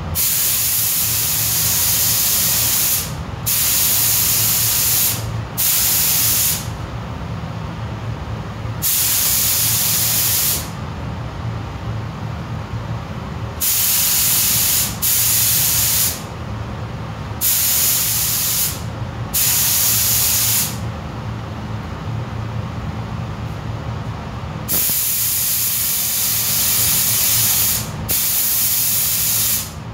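Paint spray gun laying down acrylic primer in repeated passes: about ten bursts of loud air hiss, each one to three seconds long, with short pauses between trigger pulls, over a steady low hum.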